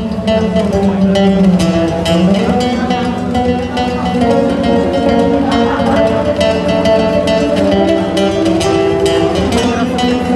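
Live unplugged band playing an instrumental passage, with acoustic guitars picking over held chords.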